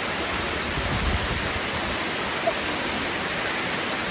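Waterfall cascading: a steady, even rush of falling water, with a brief low rumble about a second in.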